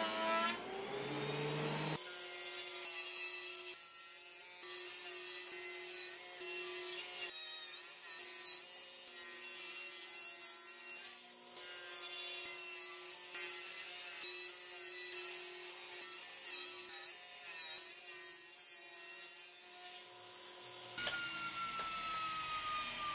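Table saw ripping pine boards: a steady high whine over the cutting noise. A motor spins up in the first two seconds, and near the end the saw winds down with a falling pitch.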